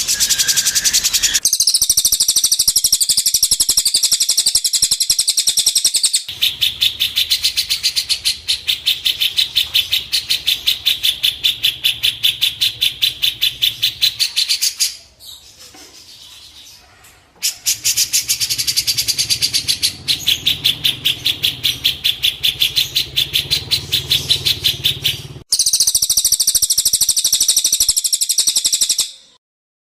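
Recorded songbird song of rapid, high-pitched, repeated chirping notes in long unbroken runs. It cuts abruptly between passages, with a short quieter break about halfway and a sudden stop near the end.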